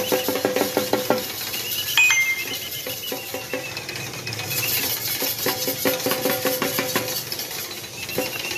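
A pair of bullocks pulling a spoked cart at speed around the pole of a circle race, their harness bells jingling in a fast rhythm with hoofbeats on loose sand. The jingling swells twice, at the start and again about two-thirds of the way in, over a faint high squeal.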